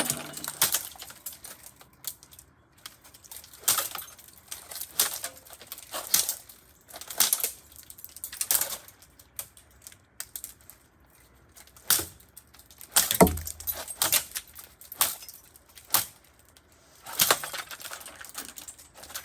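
Irregular metallic clanks, clicks and rattles from a rusty, broken Lasko 3733 box fan being broken apart, with a heavier thud about 13 seconds in.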